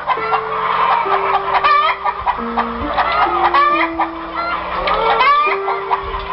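Chickens clucking, many short calls overlapping, over background music with slow held notes.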